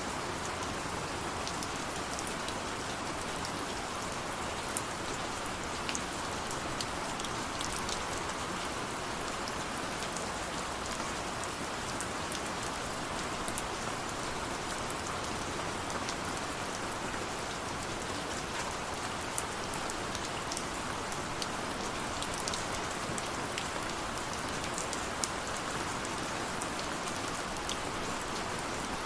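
Steady rain falling on a surface, a constant hiss with scattered sharper drops ticking through it.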